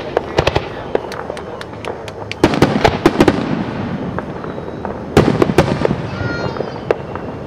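Aerial fireworks display: shells bursting in quick succession with sharp bangs and crackling, the loudest volleys about two and a half seconds in and again about five seconds in.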